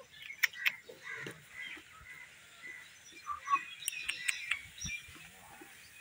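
Young puppies whimpering and squeaking: many short, high-pitched cries one after another, with a few sharp clicks among them.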